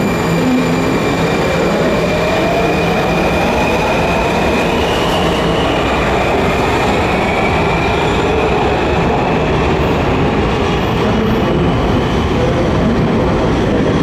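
Washington Metro Alstom 6000-series subway train pulling out of an underground station. A whine rises in pitch over the first few seconds as it picks up speed, over a steady, loud rumble of wheels on rail.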